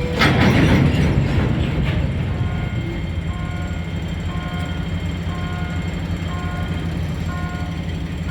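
Diesel engine of a CRRC Qishuyan CDD5A1 locomotive running with a steady low drone; the engine has an odd noise that may point to a problem in it. A burst of louder rushing noise comes in the first two seconds, and a level-crossing warning signal beeps in a repeating pattern of short tones about once a second.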